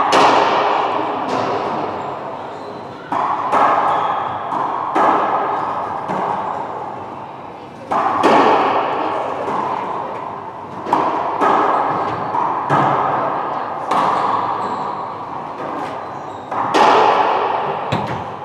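Racquetball rally: the hollow rubber ball cracking off racquet strings and the court walls, a dozen or so sharp hits, often in quick pairs, each ringing out in the enclosed court's echo.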